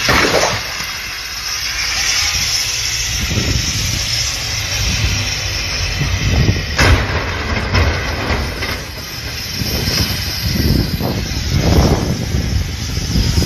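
Wind gusting hard on the microphone in a snow squall, over the rumble of vehicles on a snow-covered highway. A single sharp knock sounds about seven seconds in.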